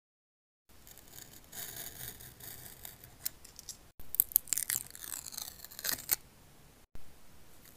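A box-cutter blade scratching through the clear plastic protective film on a diamond-painting canvas, then a louder stretch of crinkling, tearing plastic film, in short cut-together bits.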